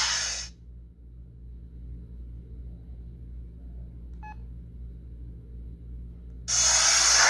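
An LG CU500 flip phone's loud, harsh startup sound from its small speaker cuts off about half a second in. A single short key beep follows a little past four seconds. About six and a half seconds in, a loud harsh sound from the phone starts again as it begins shutting down.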